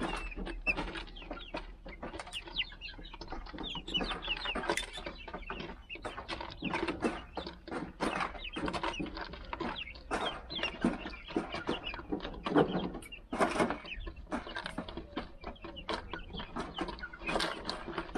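A flock of young Rhode Island Red chickens clucking and peeping softly while feeding, with many quick taps of their beaks pecking at a plastic bottle feeder and the gravelly ground.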